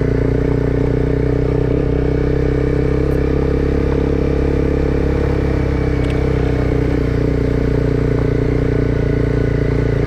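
Honda CBR300R's single-cylinder engine running at a steady, unchanging engine speed while riding, with a constant hiss of wind and road noise.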